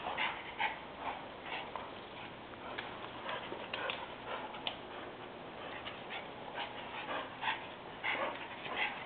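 Small dogs playing, with soft whimpers and short yips coming in many brief scattered bits.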